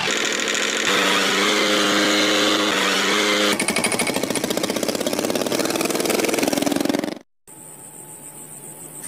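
Small electric motors and gears of miniature model tractors whirring with a steady whine, changing to a fast, even rattle about three and a half seconds in. The sound cuts off abruptly a little after seven seconds, and a fainter whir follows.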